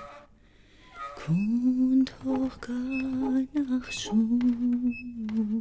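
A woman's voice humming or softly singing a slow, wordless tune in long low notes with short breaks; it begins about a second in with a note that slides up into the melody.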